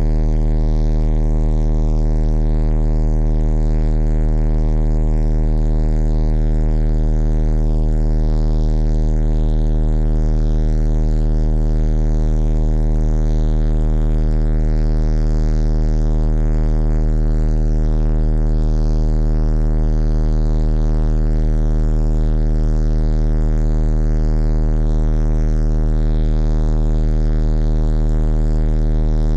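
A loud, steady low-pitched electronic buzz, rich in overtones, that does not change in pitch or level.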